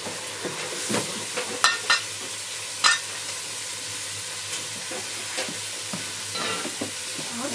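A metal ladle stirring in a metal cooking pot over an open wood fire, with three sharp ringing clinks of ladle on pot in the first three seconds and softer knocks later. Under it a steady sizzling hiss from the pot and fire.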